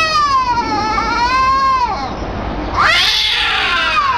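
Two domestic cats caterwauling at each other in a territorial standoff: a long, wavering yowl lasting about two seconds, then after a short pause another yowl that rises and falls.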